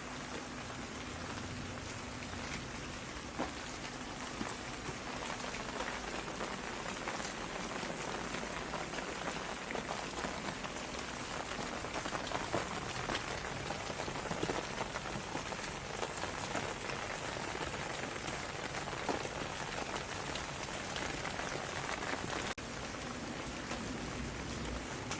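Steady rain falling, an even hiss dotted with many individual drops pattering on a surface. There is a brief dropout in the sound near the end.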